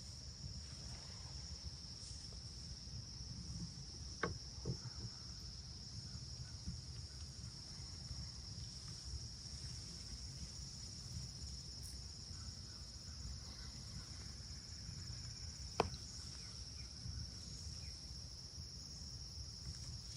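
Faint steady high-pitched trilling of an insect chorus in the woods at dawn, with a few faint sharp clicks, two about four seconds in and one later on.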